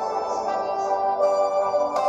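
Background music: soft ambient instrumental with sustained notes.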